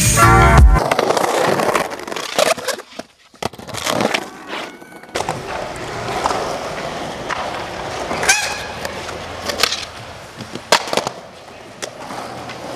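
Music cuts off within the first second, then a skateboard's wheels roll over concrete, with several sharp clacks of the board hitting the ground and a brief high squeak about eight seconds in.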